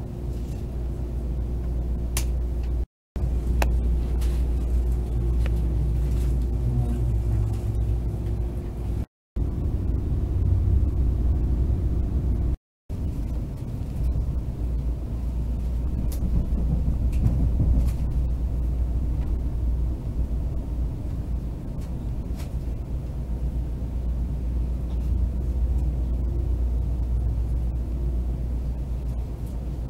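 Passenger train running, heard from inside the carriage: a steady low rumble with a constant hum over it and a few faint clicks. The sound cuts out briefly three times.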